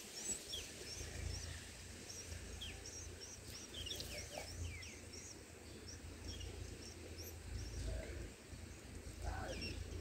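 Small songbirds chirping: a steady run of short, high chirps, several a second, with a few lower calls mixed in, over a steady low rumble.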